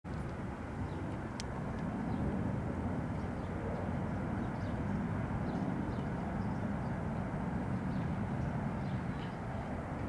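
EMD SD60M diesel-electric locomotive's 16-cylinder 710 two-stroke diesel engine idling, a deep steady drone.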